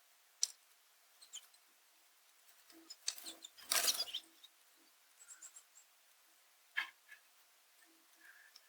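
American goldfinches at a bird feeder: scattered sharp clicks and taps, with a louder burst of clattering and rustling about three to four seconds in, and a few faint high chirps.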